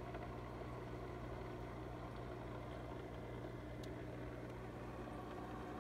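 Steady low electric hum of running aquarium equipment in a fish room, with a faint single tick about two-thirds of the way through.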